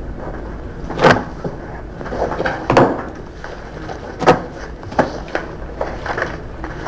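Irregular sharp knocks and thumps, five or so, over steady low room noise.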